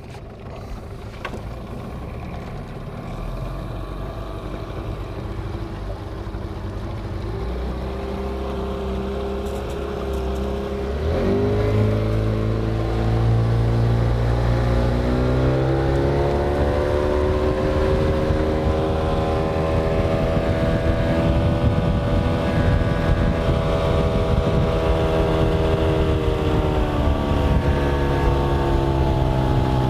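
Yamaha 9.9 tiller outboard motor pushing a small boat. It runs slowly at first, then is opened up about 11 seconds in, and its pitch rises for several seconds before it settles into a steady drone at speed.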